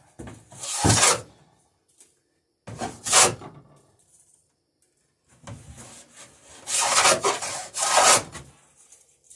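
Hand plane shaving a bevel along the edge of a wooden boat plank: a few rasping strokes with pauses between, the longest run two or three strokes late on.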